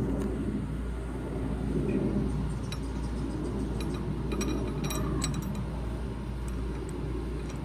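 Light metallic clicks of an AR-15 bolt with a no-go headspace gauge being worked in the barrel extension: the bolt lugs knock against the extension but will not rotate into lock, a sign that headspace is within limits. A few clicks, several bunched around the middle, over a steady low hum.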